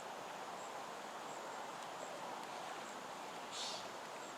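Faint outdoor ambience over a wetland: a steady hiss, with a short high chirp repeating about once a second, and a brief rustle near the end.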